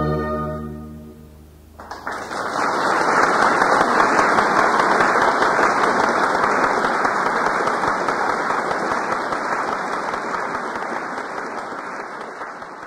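A string orchestra's final held chord dies away, and about two seconds in an audience breaks into applause, which slowly fades near the end.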